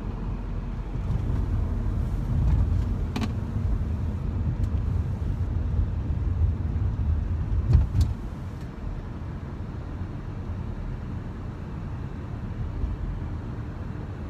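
Car driving at speed, heard from inside the cabin: a steady low rumble of tyres and engine that eases a little after about eight seconds. Two brief clicks come through, about three and eight seconds in.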